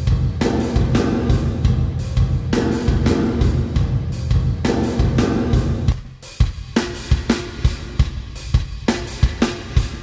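A drum kit pattern of kick, snare, hi-hat and cymbals playing through the D16 Group Spacerek reverb plugin. For about the first six seconds the 'Huge Shed' preset blurs the hits into a dense, booming wash. Then the preset changes to 'Hunters Call' and the hits stand out separately, with a much shorter tail.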